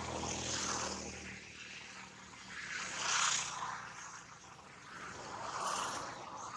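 A motor vehicle's engine hums low and steady, then fades out about a second in. Three rising-and-falling whooshes follow, the loudest about three seconds in.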